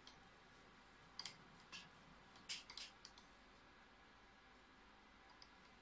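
Near silence broken by a handful of faint, short clicks in the first three seconds or so, from hands adjusting the mirror tester's position during a Ronchi test.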